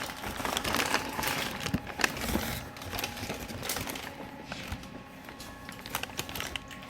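Wrapping crinkling and rustling, with many small clicks and taps scattered through it.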